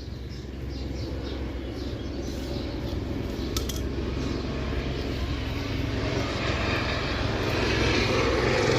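Aircraft flying over: a steady engine rumble that grows gradually louder.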